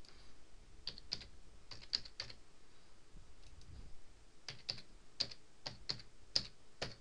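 Computer keyboard being typed on: a short run of keystrokes about a second in, then a longer run of keystrokes in the second half, as a login username and password are entered.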